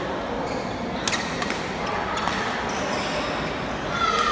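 Indistinct chatter of many people echoing in a large hall, with a few sharp clacks: one about a second in, another around two seconds, and one near the end.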